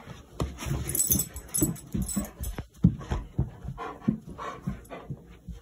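Dog making short, irregular breathy play noises and panting while it rolls on its back mouthing a person's bare feet.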